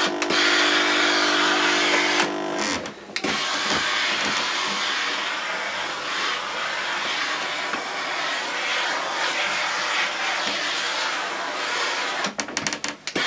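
Tefal Effectis GV6720 steam generator iron releasing a continuous jet of high-pressure steam: a steady loud hiss, with a low hum under it for the first two seconds. The hiss breaks off briefly about two and a half seconds in and ends in a few short spurts near the end.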